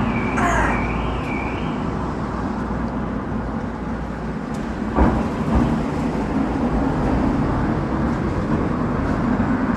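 A car engine runs in city traffic, a steady low rumble with a single sharp knock about five seconds in. A magpie gives one harsh call about half a second in, and a wavering high tone dies away about two seconds in.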